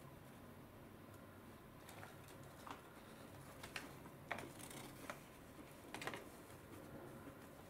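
Faint scattered crinkles and clicks as a burger, its paper wrapper and fries are handled, over a low room hum.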